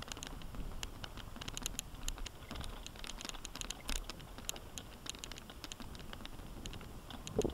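Mountain bike rattling and clicking over a rough dirt single-track trail: irregular, scattered clicks and rattles of the bike and its parts jolting over the ground.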